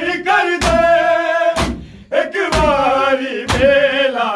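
Men singing a noha in unison in long, wavering held notes, while a crowd beats their chests together in matam. The chest strikes land as sharp, loud slaps about once a second, four of them here, keeping time under the singing.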